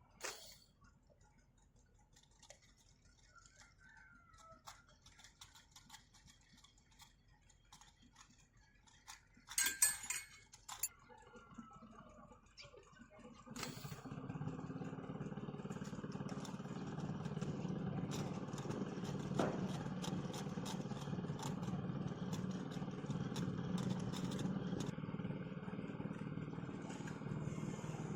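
Mostly quiet with scattered small clicks and a brief loud clatter about ten seconds in. About halfway through, a steady motor drone with a low hum starts suddenly and keeps running.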